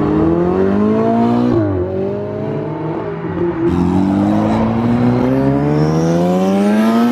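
Supercar engine accelerating hard, its pitch climbing through the gears: the revs drop at a shift about a second and a half in, dip again around three and a half seconds in, then climb steadily for the rest.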